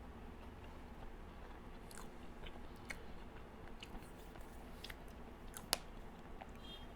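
Faint close-miked chewing and mouth sounds of someone eating a slice of chocolate cake, with scattered small clicks and one sharper click near the end.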